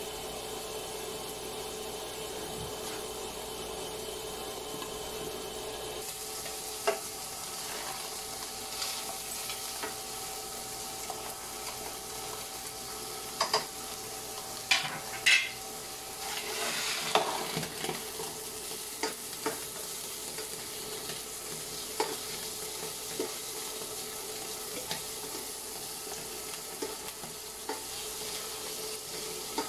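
Pork pieces with onion and garlic frying and sizzling in a stainless steel pan on an induction cooker, stirred with a spatula. There are scattered knocks and scrapes of the spatula against the pan, busiest about halfway through. A steady hum runs under the sizzle for the first few seconds.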